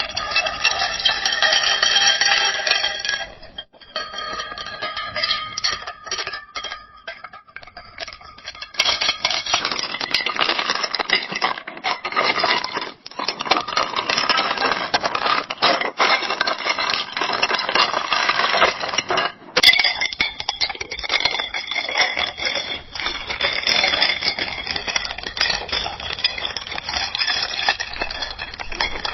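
Ice cubes clinking against a glass: a dense run of quick clinks with a ringing tone, in three takes that change about nine seconds in and again near twenty seconds.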